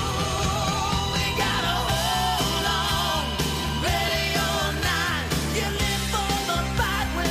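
Rock music with a singing voice over a steady bass and drum beat.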